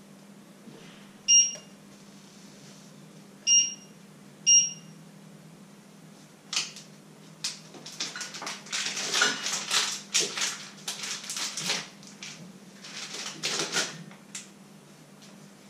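Three short electronic beeps from an electric stove's controls in the first five seconds, then a stretch of rustling and clattering as kitchen items are handled on the counter, over a steady low hum.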